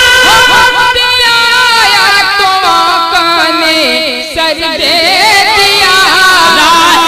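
Solo voice singing a naat, drawing the melody out in long, wavering, ornamented lines.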